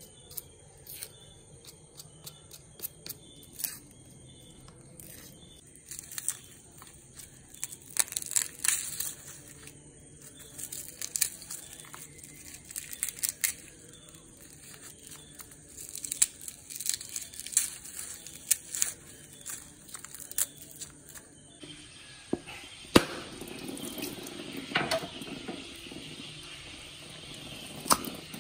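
Dry onion and garlic skins crackling and tearing as they are peeled by hand and knife on a wooden board, with many small clicks and ticks. About three quarters of the way through, a steadier rushing noise begins, with a couple of sharp knocks.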